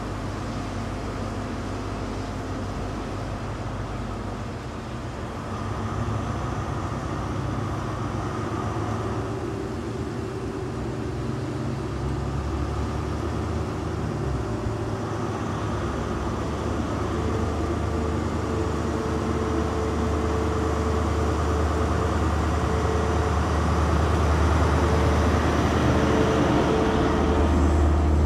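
Class 43 HST power car diesel engine idling at the platform, then throttling up about twelve seconds in as the train pulls away, its engine note growing steadily louder as the train draws past.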